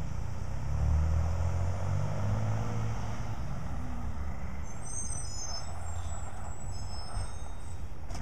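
Freightliner garbage truck's diesel engine pulling away, the low rumble swelling as it accelerates about a second in, then settling to a steady run as the truck moves off.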